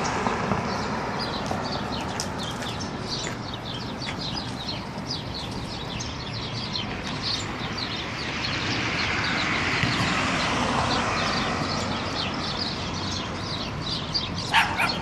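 Steady street noise with a vehicle passing about ten seconds in, and many short high chirps of small birds throughout. Near the end a dog gives one sharp bark.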